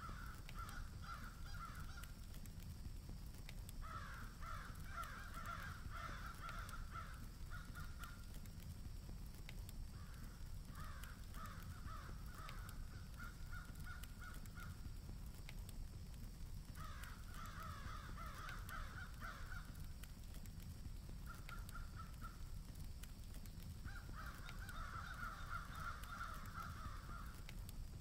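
Crows cawing in about six bouts of rapid, repeated caws, separated by short pauses, over a steady low background rumble.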